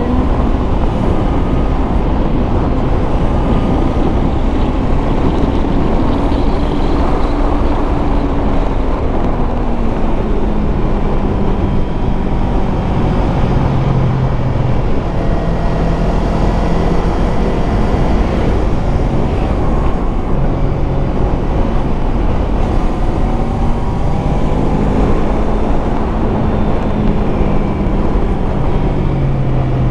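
Yamaha MT-25's 250 cc parallel-twin engine running under a rider on winding roads. The engine note rises and falls several times with the throttle, with one steady stretch roughly midway.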